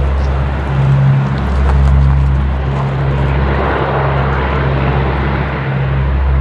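C-130H Hercules's four Allison T56 turboprop engines running as the aircraft rolls along the runway: a loud, steady propeller drone with a deep hum under a rushing noise, swelling slightly about two seconds in.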